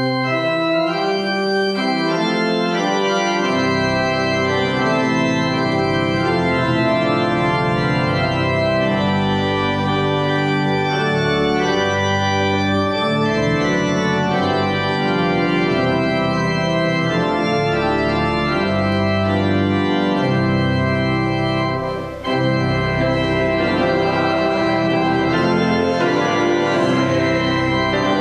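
Church organ playing sustained, shifting chords, with a brief break in the sound about 22 seconds in.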